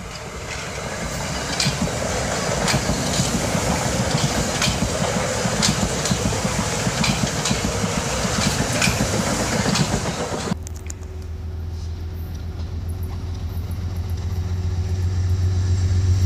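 Metro-North commuter train passing close by, cab car leading: steady wheel-on-rail rolling noise with sharp clicks of wheels over rail joints about once a second. About ten seconds in, the sound cuts abruptly to an approaching Amtrak Genesis diesel locomotive, whose engine is a low steady drone growing louder.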